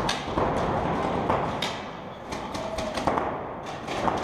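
Paintball markers firing in irregular sharp pops, over a steady rustling hiss.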